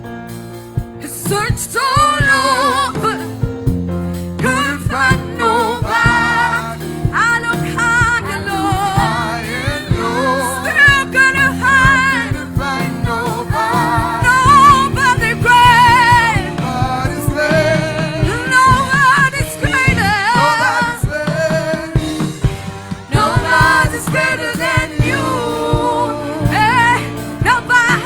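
Gospel worship music: a lead singer with strong vibrato over a band, with a steady beat underneath.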